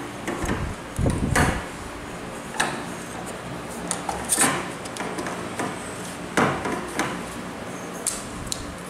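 Aluminium shaft tube of a pole pruner being pushed into its clamp coupling and handled: a string of separate knocks, scrapes and clicks of metal on metal, the strongest about a second in.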